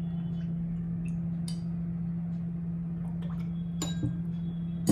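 Steel spoon clinking lightly against glass as rose syrup is spooned from a glass bowl into a drinking glass: a few faint taps, then sharper clinks about four seconds in and at the very end, over a steady low hum.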